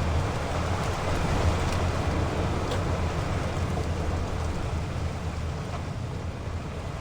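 Heavy rain pouring steadily, with a deep rumble of thunder that fades away over the first seconds.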